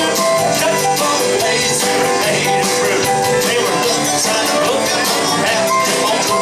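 Honky-tonk country band playing an upbeat instrumental passage, guitar over a steady drumbeat.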